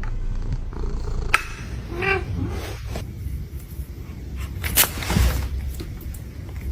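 A domestic cat gives one short meow about two seconds in, over a steady low rumble, with a few sharp knocks or clicks.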